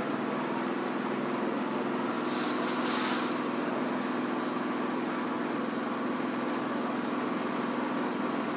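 A motor vehicle engine idling with a steady low hum, over street noise, with a short hiss about two to three seconds in.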